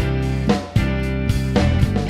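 Instrumental intro of a studio-recorded song: guitar chords changing about every half second over a low bass line, with a few sharp beats.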